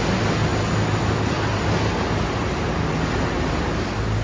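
Steady vehicle interior noise: a broad rushing sound over a low hum.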